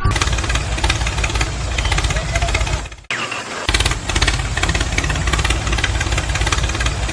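A small motor running with a rough, continuous rattle, cutting out briefly about three seconds in.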